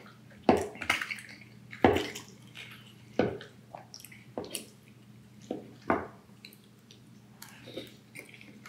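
Close-miked wet mouth sounds of eating creamy Alfredo pasta: about ten short smacks and slurps, irregularly spaced.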